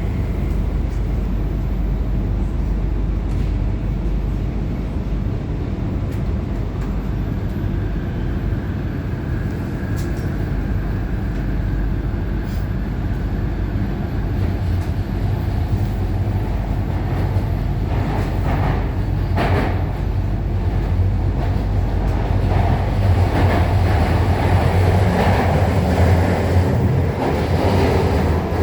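Guangzhou Metro Line 5 linear-motor train running between stations, heard from inside the rear car: a steady low rumble of wheels on track that grows louder toward the end.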